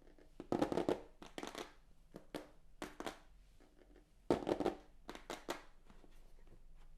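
A product box and its packaging being opened and handled: irregular bursts of scraping, crinkling and tapping, with the loudest handling about half a second in and again about four seconds in.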